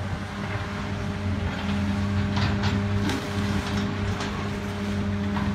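Caterpillar hydraulic excavator's diesel engine running steadily, with a cluster of sharp knocks and crunches of masonry and metal debris as the bucket works into the wrecked building, starting about two seconds in.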